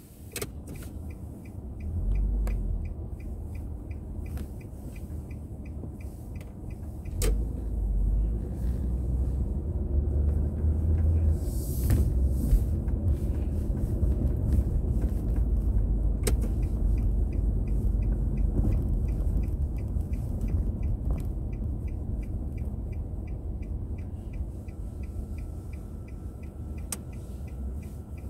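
Low engine and road rumble of a car driving, heard from inside the cabin, swelling around two seconds in, seven seconds in and between ten and thirteen seconds. Over it runs an even ticking, about two ticks a second, that stops for a few seconds near the middle and then resumes, with a few single sharp clicks.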